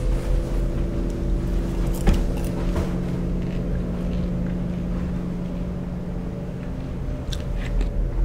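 Low droning background music: a few held low tones over a deep rumble, the notes shifting about two seconds in. A few light clicks and knocks sound over it.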